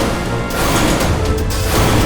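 Background music with a designed large-monster sound effect laid over it: two loud, noisy swells, the first fading about half a second in and the second building and running on to near the end.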